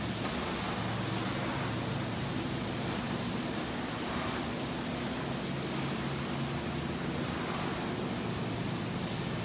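Carpet-cleaning extraction wands sucking air and water through their heads as they work across the carpet: a steady rushing hiss with a low hum under it.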